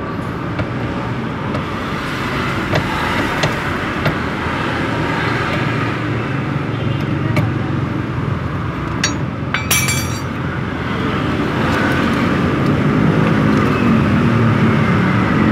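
Steady road-traffic noise that grows louder toward the end, with a few small metal clicks and a brief metallic clink about ten seconds in from hand tools working on a seized piston pin.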